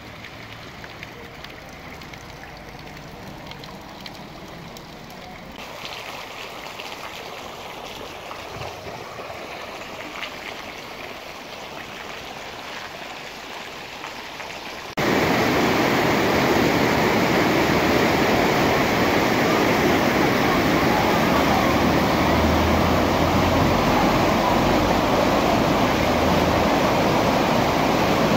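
Rainwater running across a flooded street, fairly quiet at first. About halfway through it gives way suddenly to the loud, steady rush of floodwater in a swollen, muddy canal.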